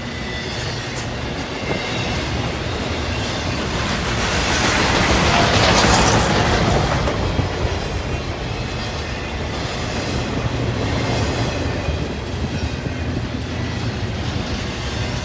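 Norfolk Southern freight train rolling past, with the steady rumble of its wheels on the rails. The sound swells to its loudest about six seconds in, then eases off.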